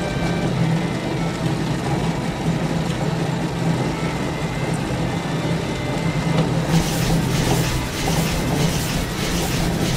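Cartoon sound effect of a factory conveyor machine running with a steady low mechanical hum. About seven seconds in, a rhythmic rattling clatter of a few beats a second joins it.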